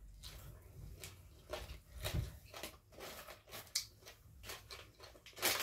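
A person chewing a mouthful of green papaya salad close to the microphone: a quick run of crisp crunches and wet mouth clicks and smacks, loudest near the end.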